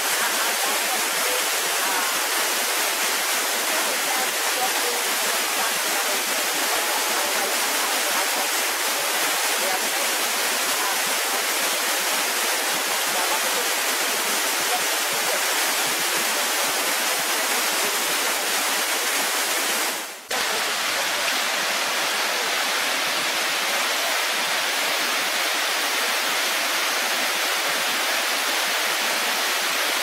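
Waterfall rushing steadily, water pouring over rock. The sound drops out for a moment about twenty seconds in, then the rushing carries on.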